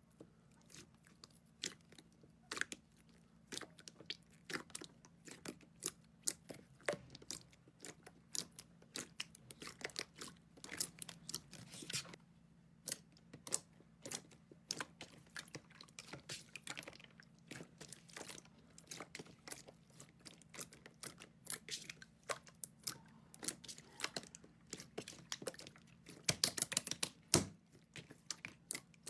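Slime being squeezed and pressed by hand, giving a run of many irregular small crackles and sticky pops, busiest and loudest near the end.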